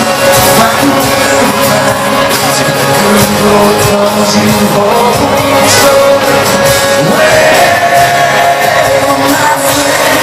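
Live country rock band playing loudly on guitar and drum kit, with singing and shouting from the crowd, recorded from among the audience.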